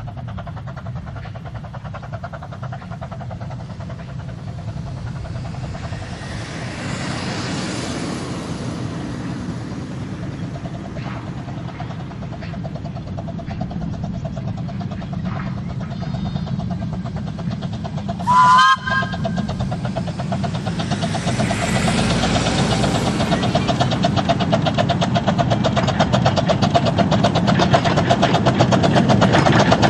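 Romney, Hythe & Dymchurch Railway 15-inch gauge Pacific steam locomotive No. 5 Typhoon working a train towards the listener, its rapid exhaust beats growing steadily louder as it approaches. A little past halfway it gives one short whistle blast.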